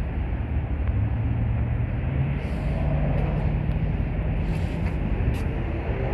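Diesel engine of a Kubota SVL97-2 compact track loader running, its pitch stepping up about a second in and again a little after two seconds.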